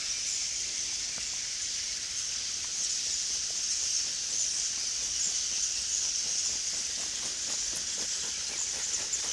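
A steady, high-pitched, hiss-like chorus of animal calls that flickers constantly, with a few faint clicks.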